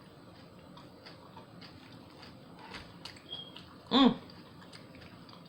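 Faint close-up chewing and mouth clicks of someone eating a sub sandwich. About four seconds in comes a single short, loud dog bark.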